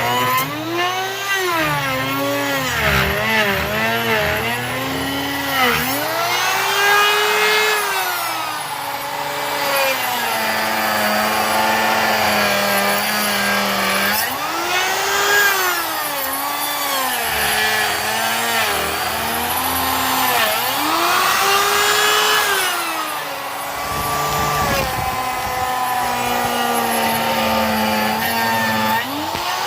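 Router running on a slab-flattening jig, cutting across a black walnut and epoxy river-table slab. Its motor pitch keeps dropping as it bites and rising back in slow swells, sometimes holding lower for a few seconds.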